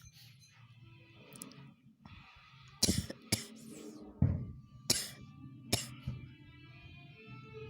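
A person coughing: two coughs close together about three seconds in, then three single coughs about a second apart, over faint background music.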